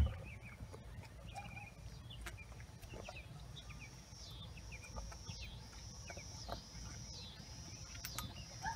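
Birds chirping, and from about halfway an insect's high buzz that repeats in pulses just under a second apart, over a low outdoor rumble; a single sharp thump at the very start.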